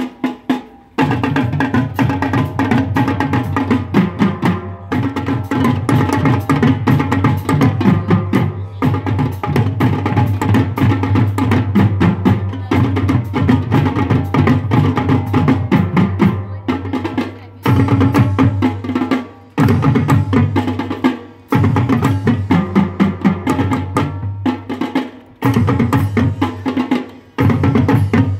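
Marching drumline of snare drums, tenor quads and bass drums playing a fast cadence together. The playing stops briefly several times in the second half, then comes back in.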